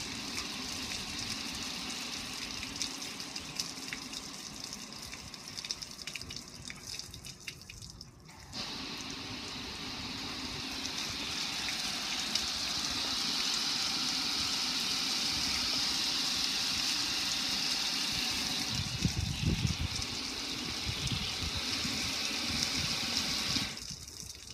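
A stream of water splashing onto a metal gas grill and running off it in a steady hiss. It breaks off briefly about a third of the way in, resumes louder, and stops shortly before the end, with a few low thumps near the end.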